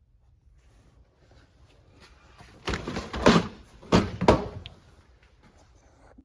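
Metal tool-chest drawers being shut and pulled open. There are two clusters of loud clunks with rattling, the second about a second after the first, among lighter handling noises.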